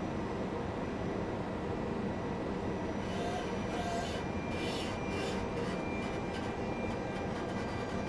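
Train running on rails: a steady rumble, with a few brief hissing surges about halfway through and a faint high whine after them.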